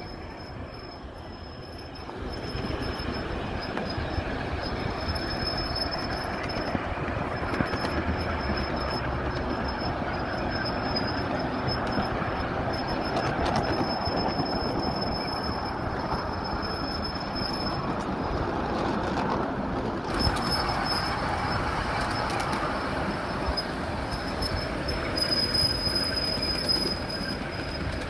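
Ride-on 1/8-scale miniature railway train running along its track, heard from aboard one of its passenger cars: a steady rumble of wheels on rail with a thin, high-pitched squeal held over it. It gets louder about two seconds in.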